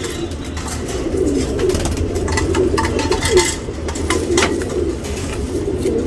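Domestic pigeons cooing steadily, one coo running into the next, over a steady low hum.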